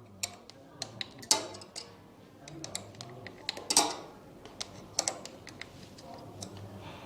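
Allen key clicking and tapping against the metal of a cable-operated disc brake caliper as the brake cable's clamp screw is loosened: a scatter of irregular sharp clicks, the loudest about a second in and near the four-second mark.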